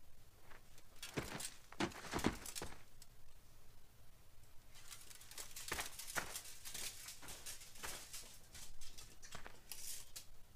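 Faint, irregular rustling and scraping noises in scattered clusters, with no speech.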